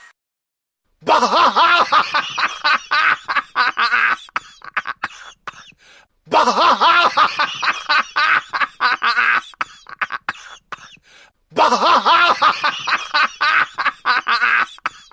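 A person's coughing, laughing fit, heard three times over in the same form. Each round starts loud and dense, then breaks up into short gasps that trail off.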